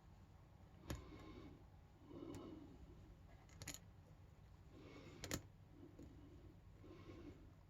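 Faint scraping and a few sharp clicks of a hook pick and tension wrench working the pin stack inside a small brass padlock, as the pick probes and sets pins.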